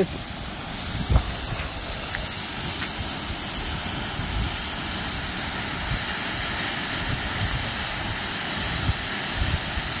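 Steady rushing of a waterfall in spate, its flow swollen and muddy after a night of heavy rain, with irregular low rumbling underneath and a soft thump about a second in.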